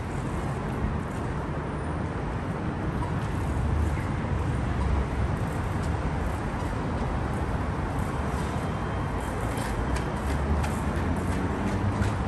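Steady low rumble and hiss of city background noise, with a few faint clicks near the end.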